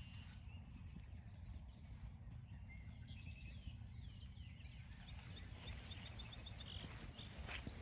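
Songbirds calling in woodland, with scattered short chirps and then, about five seconds in, a rapid trill of short down-slurred notes lasting over a second. A steady low rumble of wind runs underneath, and a footstep scuffs near the end.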